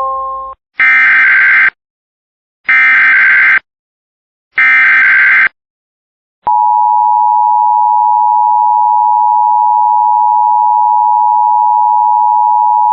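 Emergency Alert System signal: three one-second bursts of digital SAME header data, each sounding as a harsh screech, then about six and a half seconds in the steady two-tone EAS attention signal starts and holds.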